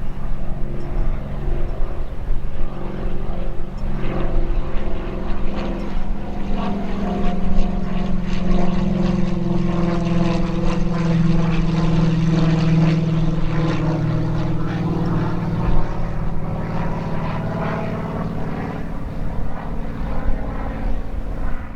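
Cirrus SR22T single-engine propeller plane passing, its engine drone loudest about halfway through and then fading.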